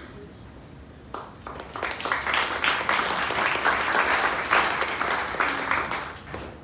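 Audience applauding, starting about a second in, swelling, and dying away just before the end.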